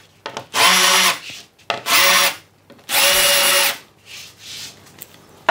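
Cordless drill running in three short bursts, each spinning up, holding briefly and winding down, as its bit widens the confirmat screw holes in an 18 mm chipboard panel.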